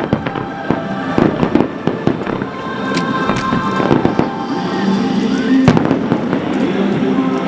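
Fireworks display going off, with many sharp bangs and crackles over music.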